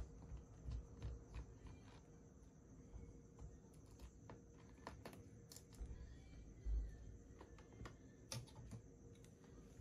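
Faint, scattered clicks and light plastic knocks of a laptop battery pack being handled and set down into the open base of an Asus Vivobook 15 laptop, with one duller thump about two-thirds of the way through.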